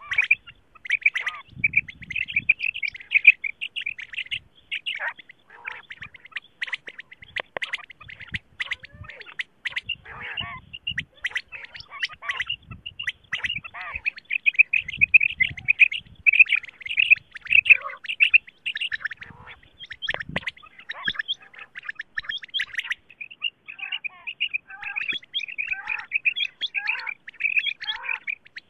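Quail (batair, common quail) calling without pause in rapid, chattering strings of short high notes. This is a female quail call recording used as a lure to draw quail in for hunting.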